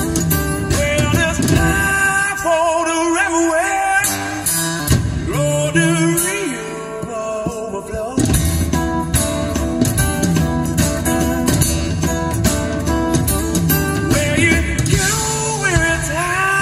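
Live concert recording, a man singing over acoustic guitar, bass and drums, played through the car's upgraded audio system (Focal Utopia M speakers driven by an Audison Forza DSP amplifier).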